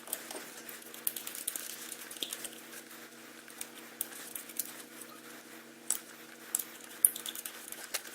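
Lug nuts being threaded by hand onto the studs of a mag wheel: scattered small metallic clicks and ticks, the sharpest a few seconds from the end, over a faint steady hum.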